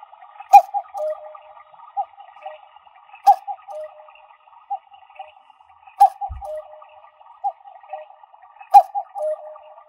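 Engstler 4053 QM battery (quartz) chalet cuckoo clock sounding its electronic call: short high notes at two pitches in a pattern that repeats about every three seconds, each round opening with a sharp click.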